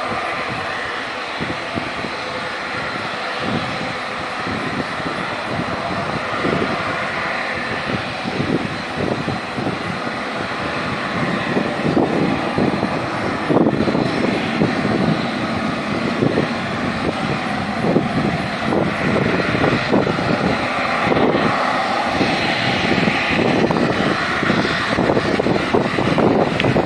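Jet airliner engines at takeoff power: a steady roar with an uneven low rumble, growing louder through the second half.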